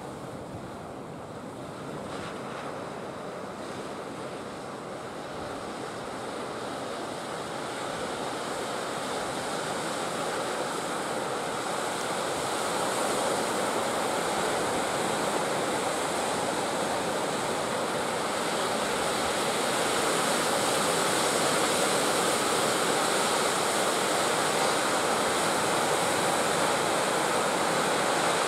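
Sea surf breaking on the shore, a steady rushing wash that grows louder over the first half and then holds.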